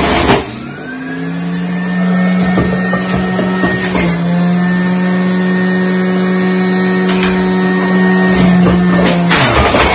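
Electric juicer motor running with a loud, steady whine. Produce is pushed down the chute right at the start and again near the end, and each time there is a short grinding burst while the motor bogs down, after which the whine winds back up in pitch.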